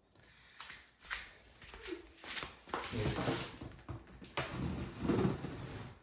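Cardboard printer box being opened and handled: scattered taps, knocks and scrapes.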